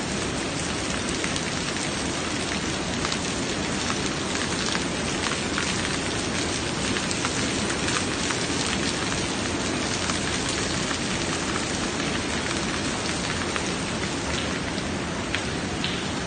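Falling water splashing steadily, an even rushing noise dotted with many small drop ticks.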